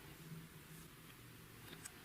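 Near silence, with a few faint sticky clicks from slime being handled near the end.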